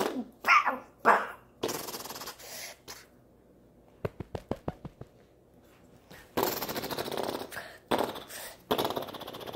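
A boy imitating machine-gun fire with his mouth for a cardboard MP40: several hissing, rattling bursts of pretend gunfire, with a quick run of about eight clicks in the middle.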